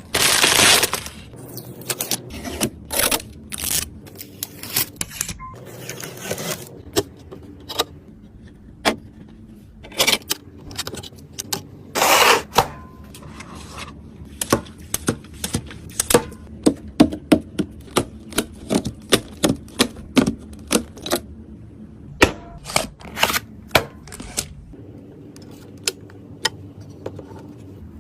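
Hands assembling PC parts: a long run of sharp plastic and metal clicks and snaps, with a few short rustling bursts, the loudest near the start and about twelve seconds in.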